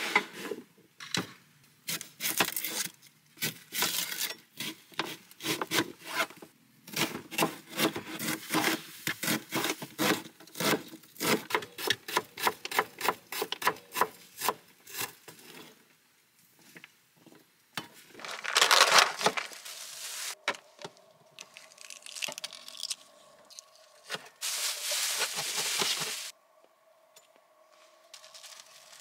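Kitchen knife chopping an onion on a cutting board, rapid chops several a second for about the first fifteen seconds, then a few bursts of rustling and handling noise.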